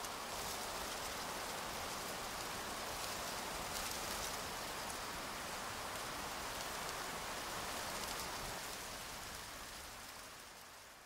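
A steady, even hiss like falling rain, which fades out over the last two seconds.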